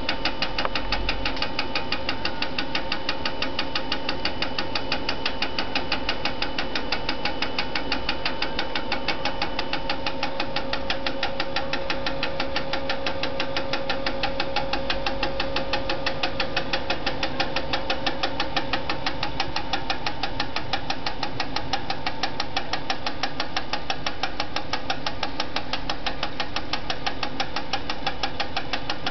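Rapid, even clicking of a mechanical watch movement's beat, picked up by a Vibrograf B 200 timing machine as it records the rate on its paper chart. A steady whine runs underneath.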